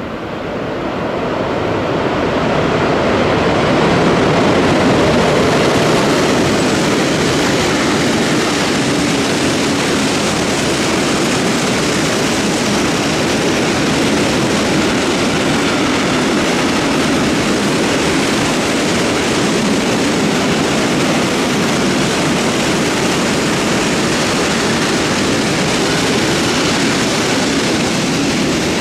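Container freight train passing close by: the steady rolling noise of the wagons' wheels on the rails, building over the first few seconds as the train draws near and then holding steady as the long line of container wagons goes by.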